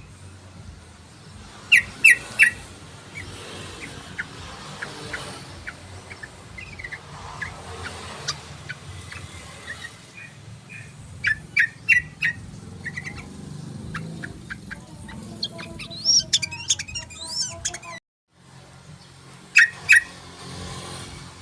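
Yellow-vented bulbul song: bursts of quick bubbling notes, loudest in clusters of three sharp notes about two seconds in, around twelve seconds and near twenty seconds. The sound cuts out for a moment just after eighteen seconds.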